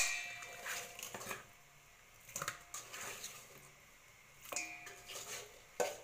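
Raw chicken pieces dropped by hand into a stainless steel bowl a few at a time: soft wet thuds and clinks, some with the bowl ringing briefly, about five or six times.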